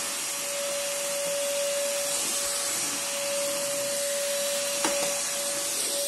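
BlitzWolf BW-AR182 cordless stick vacuum running steadily as it vacuums the floor: an even rushing hiss of air with a single steady whine from the motor.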